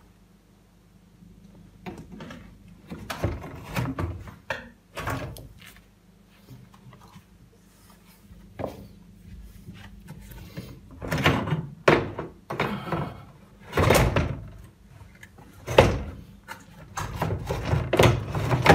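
Knocks, thuds and scraping of sheet metal and plastic as a Siemens dishwasher's stainless-steel tub is lowered and settled onto its base, with the heaviest thumps in the second half.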